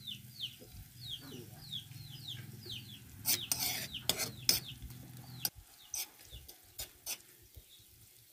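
Metal spoon stirring chopped onion, garlic and chili in an aluminium pan, scraping and clinking against the metal several times from about three seconds in. Through the first half a chick peeps over and over in short falling notes, about three a second, and a low hum cuts off suddenly about five and a half seconds in.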